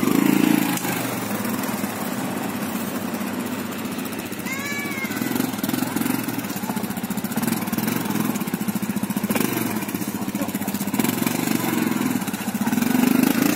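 Quad bike (ATV) engine running at low revs with a steady, even firing pulse as it rides off along a forest track. A brief high call sounds about four and a half seconds in.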